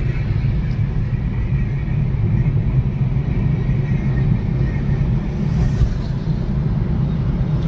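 Steady low rumble of a car's engine and tyres on the road, heard from inside the cabin while driving at a steady speed.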